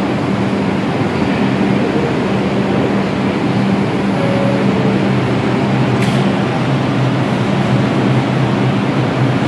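R142 subway train standing in the station, its air-conditioning and on-board equipment giving a steady hum. About four seconds in, a two-note descending door chime sounds, and around six seconds in the doors close with a sharp knock.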